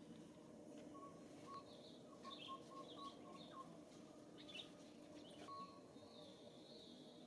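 Faint high-pitched chirping calls with short downward glides, repeating every second or so, alongside short whistled notes, over a quiet outdoor background.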